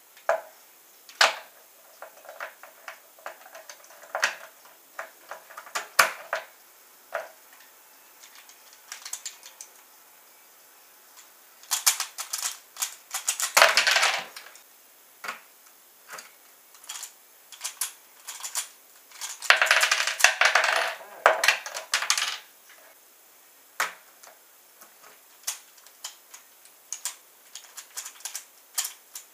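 Plastic clicking and clacking of a QJ Pyraminx puzzle being turned by hand: scattered single clicks, with two runs of fast rattling turns lasting a couple of seconds each, about twelve and twenty seconds in.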